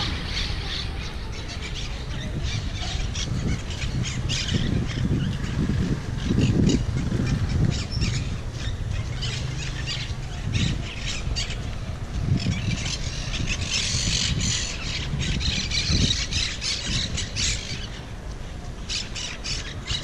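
Monk parakeets squawking: many short calls in quick succession, densest around fourteen to seventeen seconds in, over a steady low rumble.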